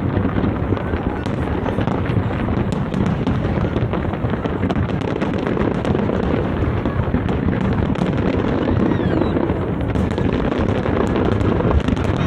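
Fireworks display going off in quick succession: a continuous rumble of overlapping booms with many sharp crackling pops on top.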